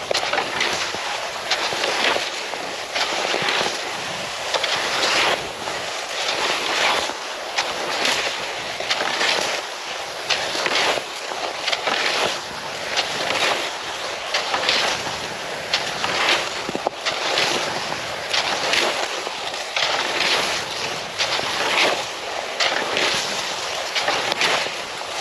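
Cross-country skis swishing over snow in a steady stride rhythm, a swell of hiss about once a second.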